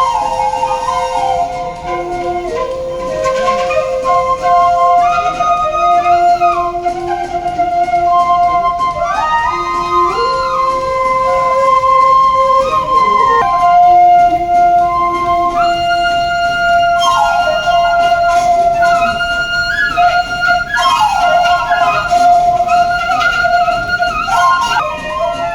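Background music: a flute-like melody of held notes that slide from one pitch to the next, over a sustained accompaniment.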